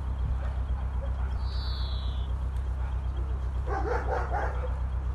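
Narrowboat engine running steadily at low speed, a low pulsing thrum. A brief high whistling tone comes about a second and a half in, and a short run of yelps, like a small dog's, comes near the four-second mark.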